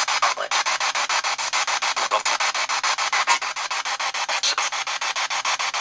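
P-SB7 spirit box radio sweeping through stations, giving a fast, even chopping of hissy radio static at about ten pulses a second.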